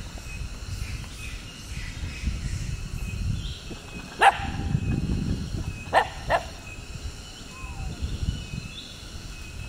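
Three short, sharp barks: one about four seconds in, then two in quick succession about two seconds later, over a steady low rumble and a faint steady high tone.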